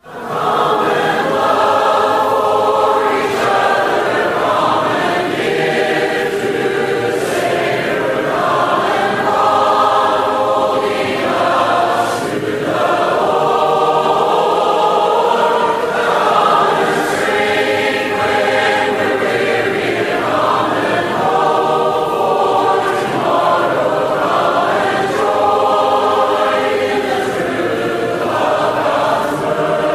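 Choir singing in sustained, many-voiced chords, moving from phrase to phrase every couple of seconds.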